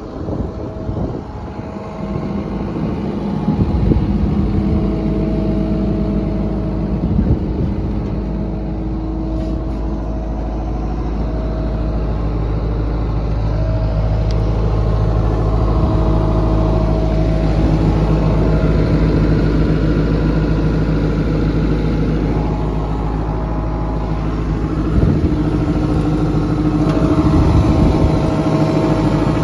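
The Isuzu diesel engine of a John Deere 135C excavator idling steadily. It grows a little louder near the end.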